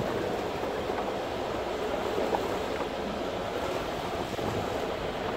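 Fishing boat's engine running steadily, with water and wind noise around the hull, as a continuous even noise with no separate events.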